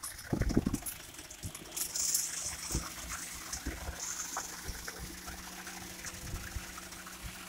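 Wet ready-mix concrete pouring in a thick stream into a foundation pit, a steady rushing gush, over a steady low machine hum that starts about a second and a half in. A few heavy low thuds sound near the start.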